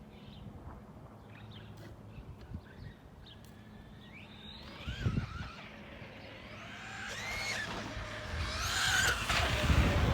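Brushless electric motor of an Arrma Granite 4x4 BLX RC truck whining, its pitch rising and falling with the throttle and growing louder toward the end as the truck comes closer. Wind rumbles on the microphone throughout.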